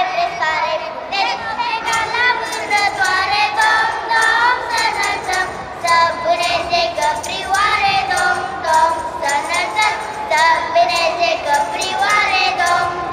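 A group of children singing a colindă, a Romanian Christmas carol, together.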